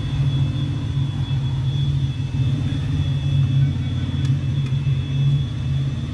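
Steady low mechanical rumble of a running engine or motor, with a thin steady high whine above it and a couple of light clicks about four seconds in.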